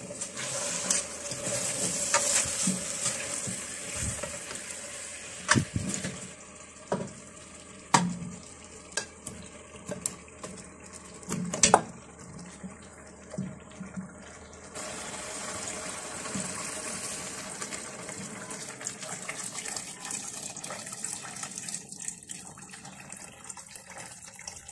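Cooking sounds in a stainless steel pot: a hiss while chicken is stirred with a wooden spoon, then several sharp knocks as chunks of carrot and turnip are dropped in, and from about midway a steady pour of warm water filling the pot.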